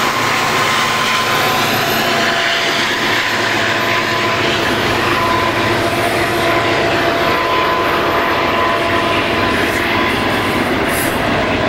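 Southern Pacific freight train passing close on a curve: the drone of a smoking diesel locomotive working upgrade, then the steady rumble of autorack cars rolling by, with a thin wheel squeal that comes and goes.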